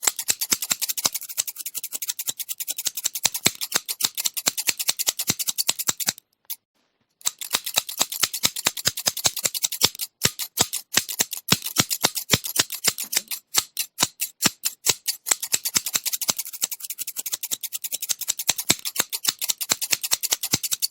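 Metal scissors snipping over and over, crisp rapid snips several a second, pausing for about a second around six seconds in and briefly again near ten seconds.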